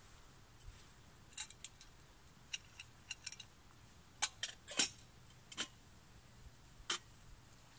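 Light metal clinks and taps from a metal camping mug or pot and its wire handle being handled and set over a small stove, in scattered clusters with the loudest clinks a little after the middle.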